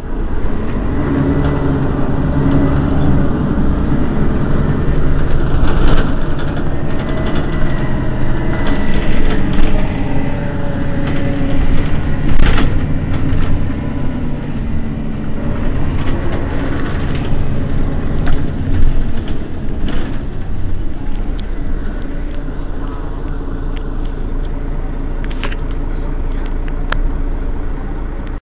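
Mercedes-Benz Citaro city bus engine idling steadily while the bus stands at a stop, with a few sharp clicks over it.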